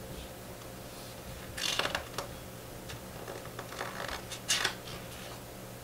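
Paper rustling as the pages of a picture book are handled and turned, in a few short brushes and scrapes, over a faint steady hum.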